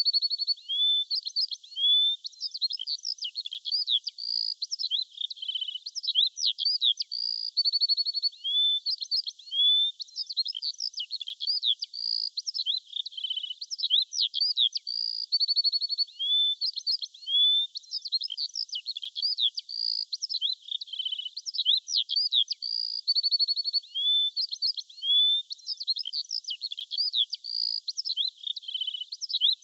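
Songbirds singing: a continuous busy stream of high chirps, slurred whistles and short rapid trills, with no other sound underneath.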